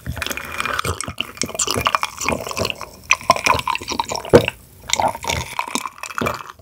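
A person drinking from a glass mug, miked close: a run of swallows and gulps with small wet clicks of the lips and throat, and one sharper click about four and a half seconds in.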